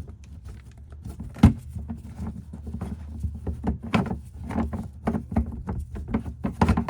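Irregular clicks and knocks as an underbody access cover is unfastened and taken off beneath a pickup truck, with one sharper knock about a second and a half in.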